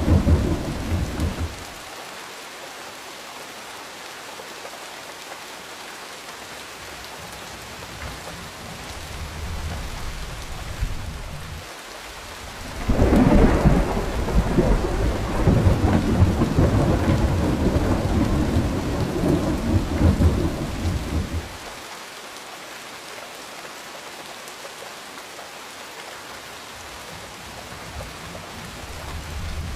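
Steady rain with rolling thunder: a rumble dies away about a second in, and after a quieter stretch of rain a loud peal breaks suddenly near the middle and rumbles for about eight seconds. Another rumble starts building near the end.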